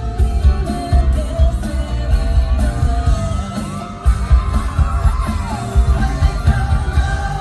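A live pop-rock song over a concert hall's sound system: a heavy, regular bass beat under a sung lead vocal line, with fans yelling and cheering over it.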